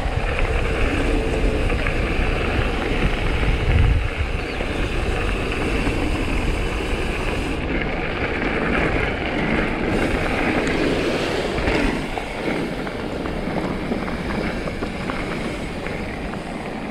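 Mountain bike riding down a dirt trail: wind rushing over the microphone mixed with tyre noise and the rattle of the bike, a steady noise that eases a little after about twelve seconds.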